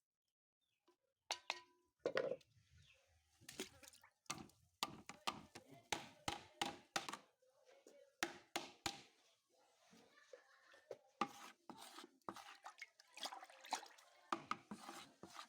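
Irregular series of sharp taps and knocks, some with a dull thud, at an uneven pace of a few per second.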